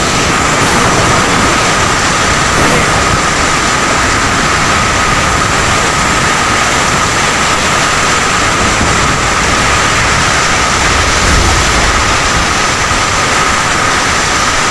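Heavy rain and gusting wind in a tropical rainstorm: a loud, steady roar of downpour, with a low, restless rumble of wind on the microphone.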